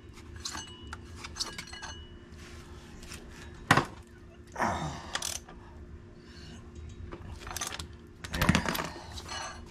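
Socket ratchet and metal hand tools working on the front axle of a Honda Helix scooter: scattered metal clicks and clinks. The loudest is a sharp metal knock a little under four seconds in, with a cluster of clanks near the end.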